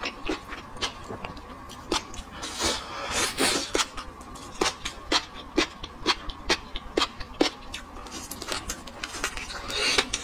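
Close-miked crackling and clicking of raw prawn shells being handled and pulled apart by hand, with a wet sucking sound near the end as a prawn is brought to the mouth.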